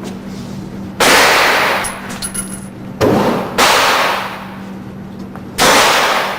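Four gunshots, irregularly spaced, two of them in quick succession about halfway through. Each one rings out in a long echo that fades over most of a second.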